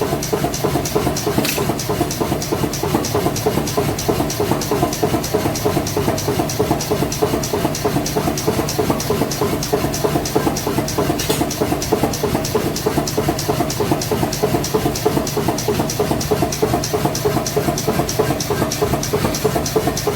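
A machine or engine running steadily, with an even rapid beat of about four to five strokes a second.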